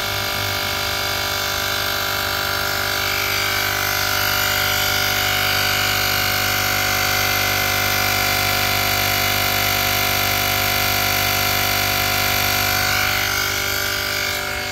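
Portable cordless digital air compressor (model JM-8817) running steadily as it pumps up a car tyre toward its 40 PSI automatic shut-off. Its motor hum becomes a little louder and higher from about four seconds in and eases slightly near the end.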